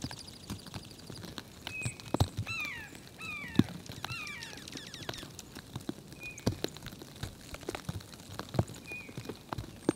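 Wild songbirds calling in short notes, with a quick run of falling, slurred calls near the middle and a brief high trill near the start. Scattered light taps and knocks run throughout.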